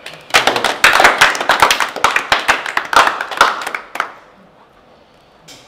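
Several people clapping hands, quick and uneven, for about four seconds before it stops.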